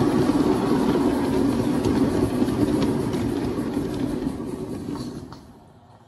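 Large-scale model train running on the track with a steady running noise, which fades away about five seconds in.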